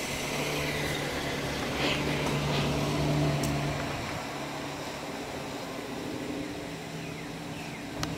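Pontiac Vibe hatchback driving slowly past at low engine speed: a steady engine hum that grows louder as the car comes level and then fades as it moves away. A couple of light clicks near the end.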